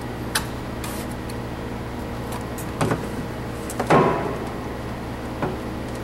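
A few clicks and knocks of the cross trainer's plastic and metal parts being handled as its rear platform is taken off, the loudest knock about four seconds in and ringing briefly, over a steady low hum.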